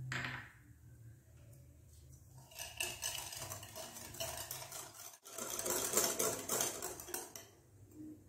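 A metal wire whisk beating eggs and sugar in a glass bowl, fast rattling strokes against the glass for several seconds from about two and a half seconds in, with a brief break in the middle. A short knock right at the start.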